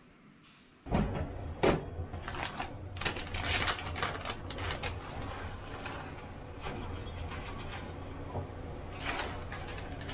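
A plastic bag of tenkasu (crunchy tempura crumbs) rustling and crinkling as the crumbs are poured out onto a small ceramic plate, with sharp crackles. It starts about a second in, over a steady low hum.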